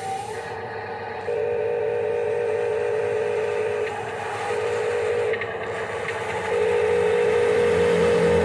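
Radio-controlled model construction machine: a steady, warbling electric motor and pump whine that starts and stops in stretches of a second or more, louder near the end, with a few light clicks.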